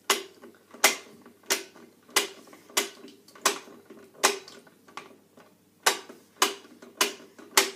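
Plastic ratchet of the Pie Face game's handle clicking as it is cranked round, one sharp click about every two-thirds of a second, about ten in all, with a short pause near the middle.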